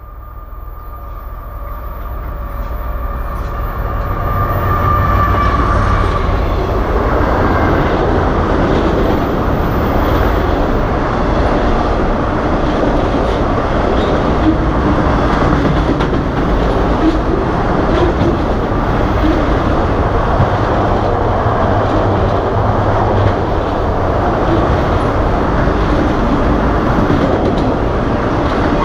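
A CN freight train led by a GE ET44AC diesel locomotive approaches and passes beneath at speed. It grows louder over the first few seconds, with a thin whine that fades out, then settles into the steady noise of autorack cars' wheels running over the rails.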